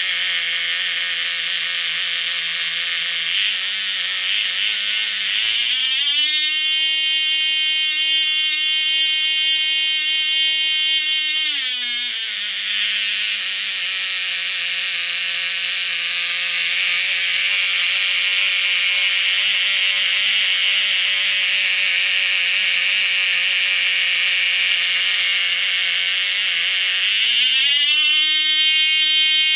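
Cox Medallion .051 two-stroke glow engine running with a high-pitched buzz under an RC throttle carburettor. About six seconds in it speeds up smoothly to a higher, steady pitch. Around twelve seconds it drops back to a lower steady speed, then it rises again near the end as the throttle is opened.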